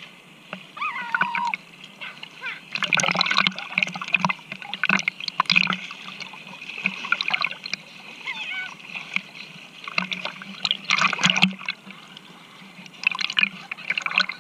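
Water splashing in several irregular bursts, from swimming and kicking in the sea.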